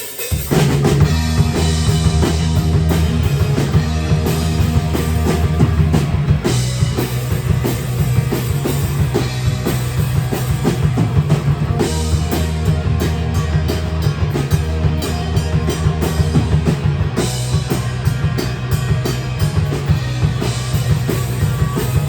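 Live rock band playing an instrumental intro, with drum kit, bass and guitars, before the vocals come in.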